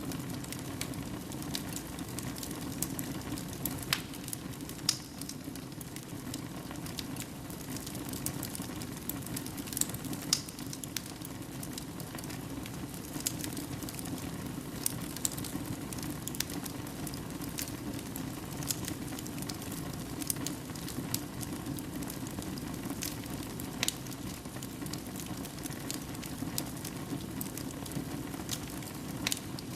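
Wood fire burning in a fireplace: a steady low rush of flames with irregular sharp crackles and pops, a few louder than the rest.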